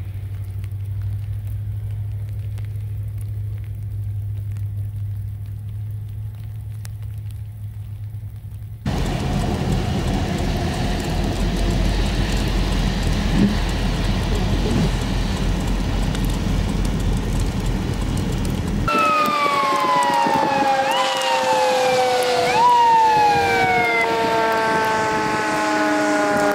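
A low steady hum, then a broad rushing rumble, then a fire engine's siren cutting in about two-thirds of the way through, wailing up and down in quick cycles before its pitch slides steadily downward as the truck goes by.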